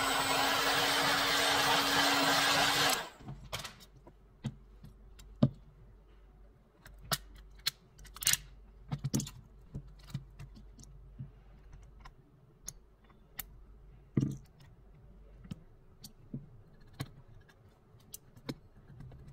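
Heat gun blowing hot air onto the phone's screen to soften its adhesive: a steady rush of air over a motor hum that cuts off about three seconds in. After that come scattered light clicks and taps of metal tools and phone parts being handled.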